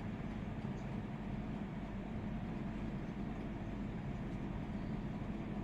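A steady low mechanical hum with a hiss, unchanging throughout.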